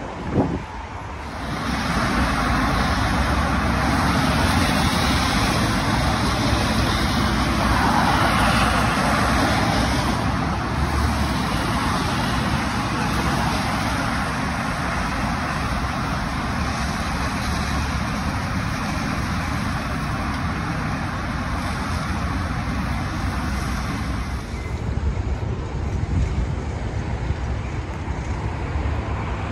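Steady road traffic noise picked up by a smartphone's built-in microphone, with a short knock just after the start and a shift in tone about a second in and again near the end.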